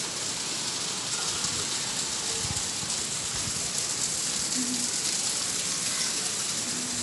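Heavy rain falling steadily, an even hiss throughout.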